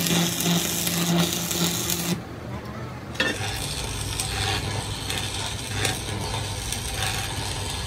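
Stick (arc) welding: the electrode's arc crackles and sizzles over a steady electrical hum. The arc breaks off about two seconds in, is struck again about a second later and runs on.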